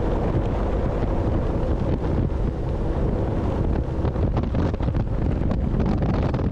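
Steady wind buffeting the microphone on a boat under way, with the boat's engine and water noise underneath.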